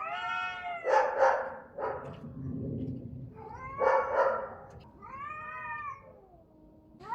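Domestic cats yowling at each other in a fight: three drawn-out, rising-and-falling caterwauls, with short harsh bursts about a second in and again about four seconds in.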